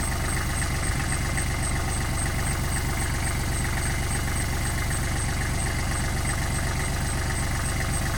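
Engine idling steadily, with a faint high-pitched pulsing beep about four times a second.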